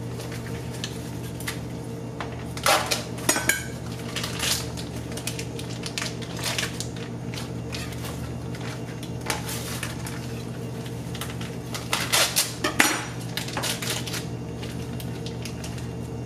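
Plastic wrapping crinkling and rustling as partly frozen catfish fillets are peeled out of it, with louder crackling bursts about three seconds in and again around twelve seconds, over a steady low hum.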